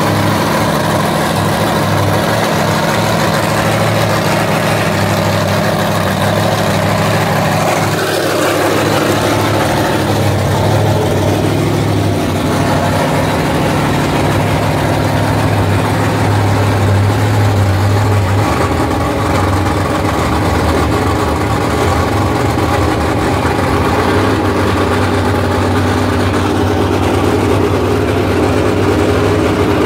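A large vehicle engine idling steadily with a low, even drone; its note shifts slightly about eighteen seconds in.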